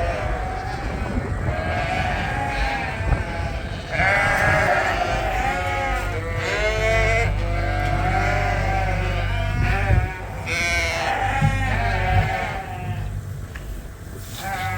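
A flock of sheep bleating, many calls overlapping one another, with a steady low rumble under them in the middle stretch.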